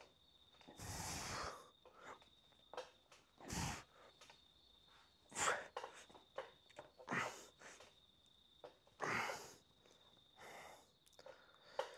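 A lifter's forceful breaths and exhales, about seven over the set, one with each rep of an incline dumbbell press, every one to two seconds. A steady high trill runs underneath.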